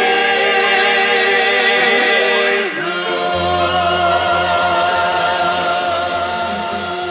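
Choral music: voices holding long notes with vibrato over instruments, the chord changing about three seconds in as a low bass note enters and holds.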